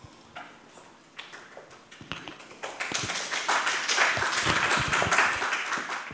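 A small group clapping. A few scattered claps at first build into steady applause about two and a half seconds in.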